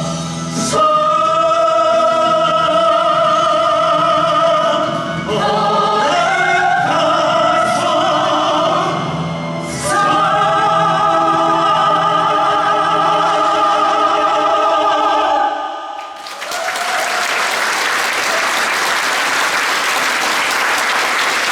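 Musical-theatre singers holding long, powerful final notes of a ballad over music, which ends about 15 seconds in. An audience then breaks into applause.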